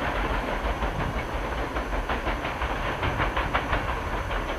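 A long string of freight hopper wagons rolling past, the wheels clicking rapidly over the rail joints over a steady low rumble and hiss.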